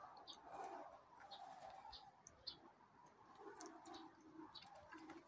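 Faint, soft animal calls: scattered short high chirps, and from about three and a half seconds in a low cooing call in several short notes.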